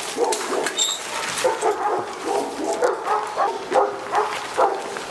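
Several dogs barking and yipping at once, short overlapping barks following one another without a break.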